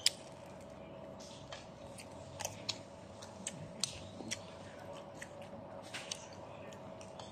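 Metal spoon and fork clicking and scraping against a ceramic bowl of noodle soup during eating, a dozen or so short irregular clinks, the loudest right at the start, with quiet chewing between them. A faint steady hum runs underneath.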